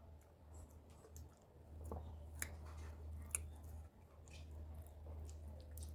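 Close-up eating sounds of a person chewing cassava fufu with bitterleaf soup: soft wet chewing and mouth clicks, with two sharper clicks in the middle, over a steady low hum.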